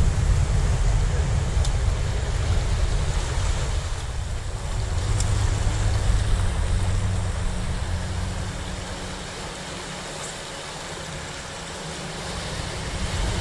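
Small waves washing and breaking over shore rocks, under a heavy rumble of wind on the microphone; the sound swells and eases, is quietest a little past the middle, then rises again near the end.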